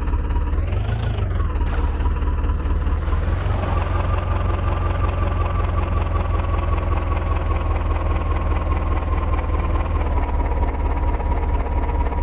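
Heavy diesel engine of a tractor or backhoe loader running steadily, with a thin whine above it that wavers in pitch in the first two seconds, rises a little about three and a half seconds in, and then holds.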